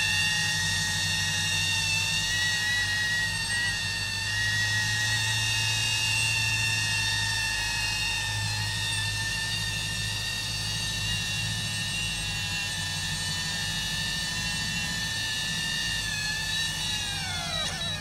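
DJI Avata cinewhoop's ducted propellers whining steadily in a low hover, several high tones over a low hum. Near the end the motors spool down as it settles onto the ground, the whine falling sharply in pitch.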